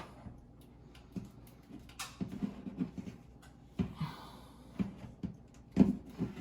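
Irregular plastic knocks and clicks as a Nest smoke and carbon monoxide alarm is handled and pushed onto its ceiling mounting plate, with a brief scrape midway and the loudest knock near the end.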